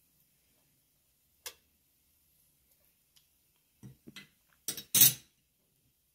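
Kitchenware clinking: a single sharp tick about a second and a half in, then a quick cluster of knocks, the loudest about five seconds in, as a metal spoon and cookware are handled.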